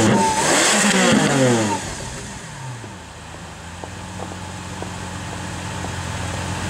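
Supercar engine revving loudly, its pitch sweeping up and down several times for about two seconds, then fading away. A steady low engine hum follows.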